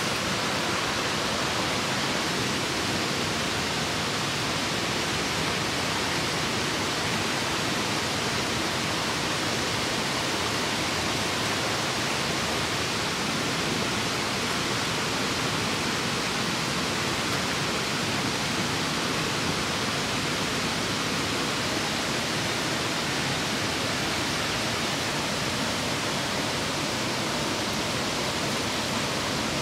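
Running stream water: an even, steady rush with no breaks.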